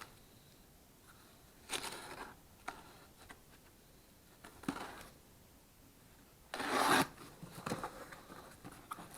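Packaging being handled during an unboxing: a few short scraping and rustling sounds, a louder tearing or scratching noise lasting about half a second near the middle, and small clicks and taps near the end.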